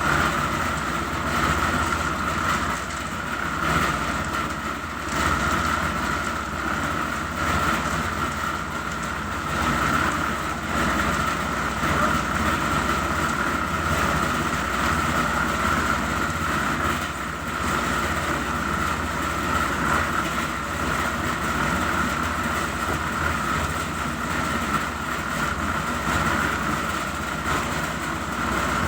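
Construction machinery running steadily during a concrete floor pour, with a constant high whine over a dense mechanical rumble.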